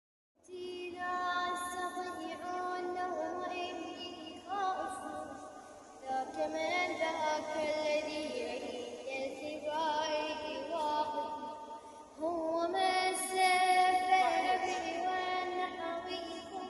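A high voice sings a slow, ornamented melody with long held, wavering notes in phrases a few seconds long.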